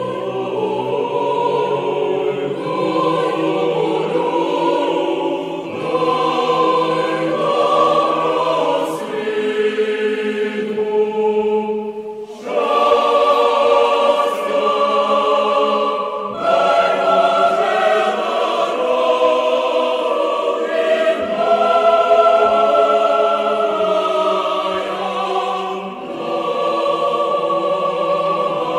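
Choir singing slow music in long held chords, in phrases a few seconds long with brief breaks between them.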